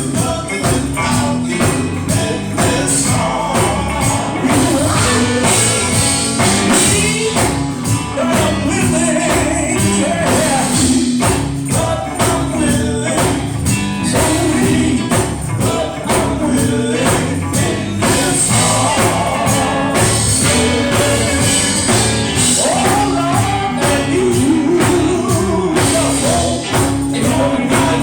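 Live gospel music: a band playing an up-tempo song with a tambourine shaking throughout and voices singing along.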